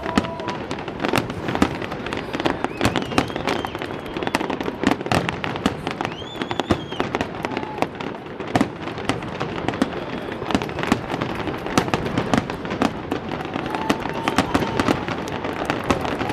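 Aerial fireworks bursting in quick succession: a dense, continuous crackle of sharp bangs and pops. A few steady whistling tones sound now and then over it.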